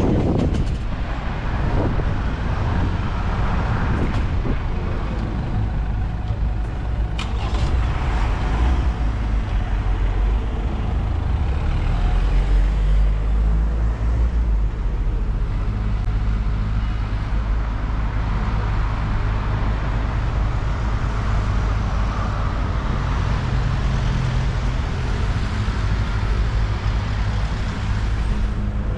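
Road traffic on a city street: cars and taxis driving past, a steady engine and tyre rumble.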